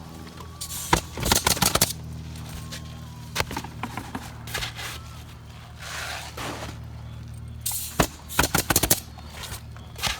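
Pneumatic roofing nail guns firing shingle nails, in quick runs of several shots with single shots between, over a steady low hum.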